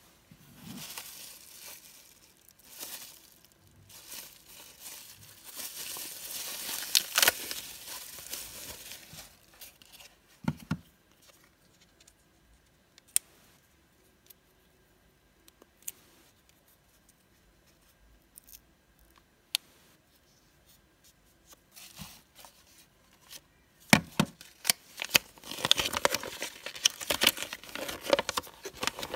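Plastic bubble-wrap packaging crinkling and tearing as it is opened, then a few scattered handling clicks. Near the end a paper instruction leaflet rustles and crackles as it is unfolded.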